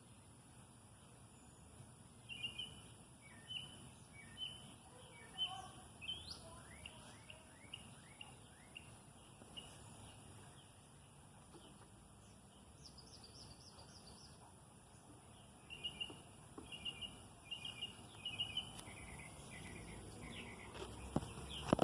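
Birds chirping in short repeated notes, in two spells with a brief higher trill between them, over a faint steady high-pitched background tone.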